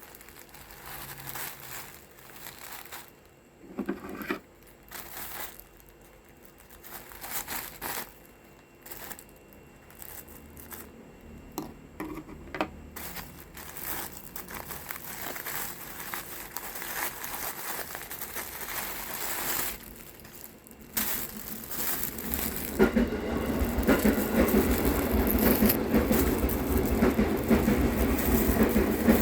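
Plastic packaging crinkling and tearing in irregular rustles and crackles as a pair of motorcycle gloves is unwrapped. From about 22 seconds in, a louder, steady rough rubbing noise with a low rumble takes over.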